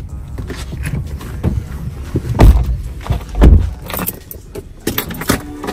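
A person climbing into a car's front passenger seat: two heavy thumps about two and a half and three and a half seconds in as he gets in and drops onto the seat. A run of light clicks and rattles follows near the end.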